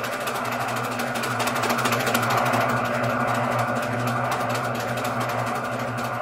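Brushes played rapidly on a small Tama snare, picked up by a drum trigger and run through electronic effects. The result is a continuous buzzing drone with a steady low hum and a fast flutter, swelling slightly about two seconds in.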